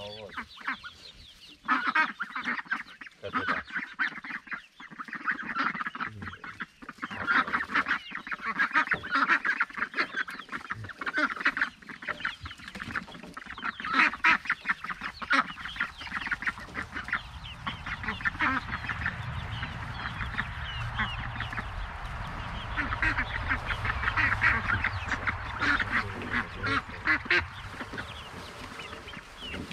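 A flock of white domestic ducks quacking busily, many calls overlapping one another. A steady low rumble joins in about halfway through.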